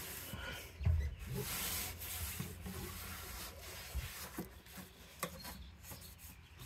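Microfiber cloth rubbing and wiping across a vehicle dashboard, in uneven strokes. A few light knocks come through, the strongest about a second in.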